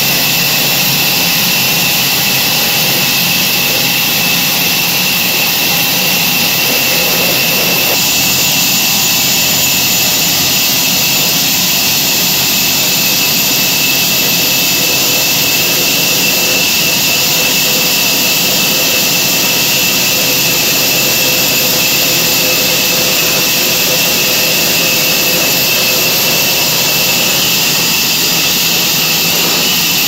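Band sawmill cutting through a walnut log: the blade and motor run at a steady high whine over a loud, even hiss of cutting.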